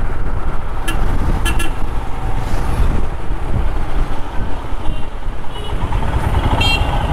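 Royal Enfield Himalayan 411's single-cylinder engine running at low speed in slow, dense traffic, with steady road rumble. Short vehicle horn toots sound about a second in, twice more shortly after, and again near the end.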